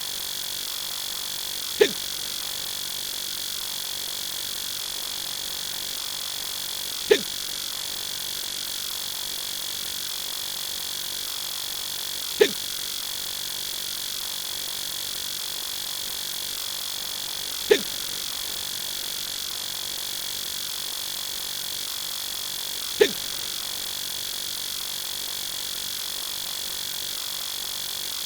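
Adult male hiccup sound effect, five single short hiccups about five seconds apart, over a steady hiss with a thin high whine.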